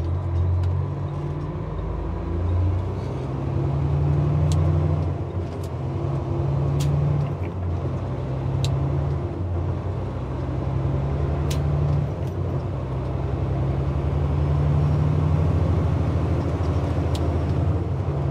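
Semi-truck diesel engine running while driving: a steady low drone that swells and eases, with a few sharp clicks or rattles scattered through it.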